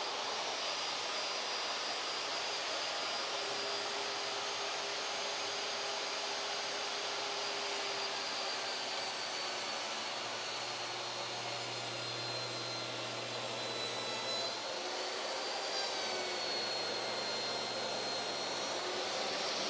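Electric power-tool motor running steadily, with a high whine that sags and recovers about two thirds of the way through.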